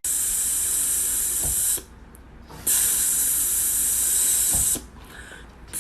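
Two long, steady hisses of about two seconds each, with a short break between them.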